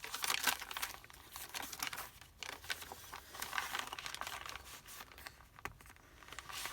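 Paper rustling and crinkling as the pages of a handmade paper journal are turned and its tags, pockets and ephemera handled, in a run of irregular rustles.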